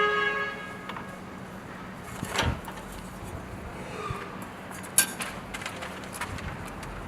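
Scattered clicks and knocks of a circular saw being handled and adjusted while it is not running, one sharp click about five seconds in, over a steady low hum.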